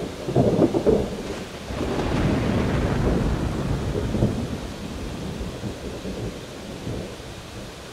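A peal of thunder cracking and rolling, swelling again about two seconds in, then slowly dying away over steady rain.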